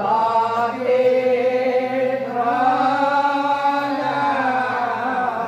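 Devotees chanting a devotional chant together in long, drawn-out notes that slide slowly from one pitch to the next.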